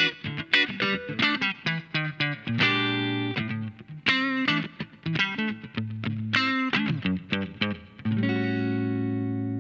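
Electric guitar played through a compressor effects pedal: a quick run of picked single notes and short chords, then a chord struck about eight seconds in that rings out with long, even sustain.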